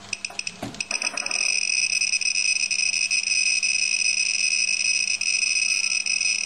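Handheld Geiger counter held over a radium-painted clock dial: quick clicks for about the first second, then its alarm comes on as a steady high-pitched tone, set off by a high radiation reading of more than 80 microsieverts.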